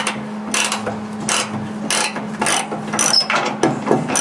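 Socket ratchet wrench clicking in short repeated strokes, about one and a half a second, as it turns a nut welded onto a rusted door-hinge screw. A steady low hum runs underneath.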